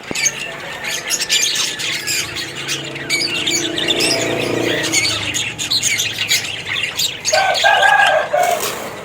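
A colony of cockatiels chirping and squawking together in a dense, continuous chatter, with a louder, lower-pitched call near the end.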